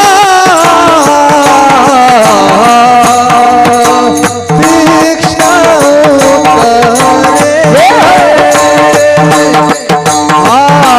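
Marathi kirtan devotional music: a sustained melody that steps from note to note over a steady beat of drum and cymbal strokes.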